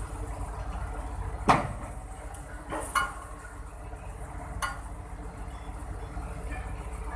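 Diesel pile-driving rig: a steady low engine rumble with three sharp metallic clanks, a second or more apart, the first the loudest and some briefly ringing.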